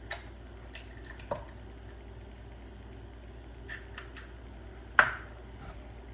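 An egg cracked and dropped into milk in a glass measuring cup: a few light taps and clicks with a wet squish in the first second or so, then a single louder clack about five seconds in.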